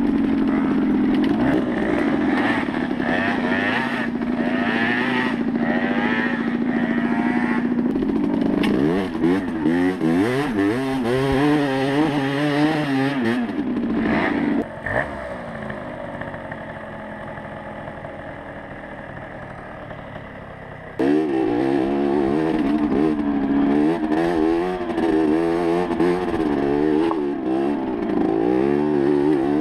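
Small 50cc two-stroke moped engine revving up and down as the bike picks its way over rough ground, its pitch rising and falling, with some clatter from the bike. About halfway through it drops abruptly to a quieter, steadier idle for about six seconds, then comes back loud and revving just as suddenly.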